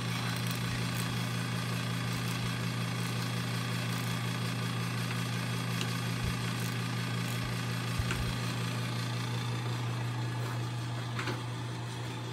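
A steady low mechanical hum runs throughout, with a few faint metal clicks of a small socket tool as the clutch bolts are tightened.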